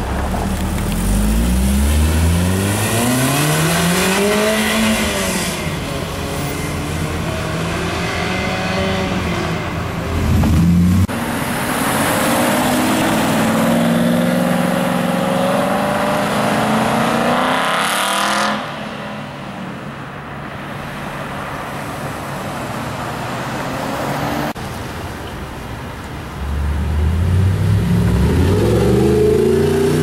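Sports cars accelerating hard one after another, their exhaust notes rising in pitch through the revs: first an Ariel Atom pulling away, then an Aston Martin V8 Vantage, and near the end an Audi R8 accelerating away. The sound changes abruptly several times between cars.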